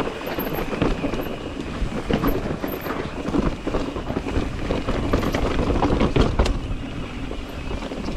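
Mountain bike descending a rocky dirt trail: knobby tyres crunching over dirt and stones while the bike rattles and clatters with many quick knocks, over a steady low rumble.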